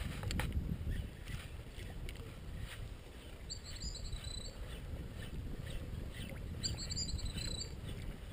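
Steady low rumble of a small boat on the water, with a sharp click just after the start. Two short, high, wavering trills come about three and a half seconds in and again near seven seconds.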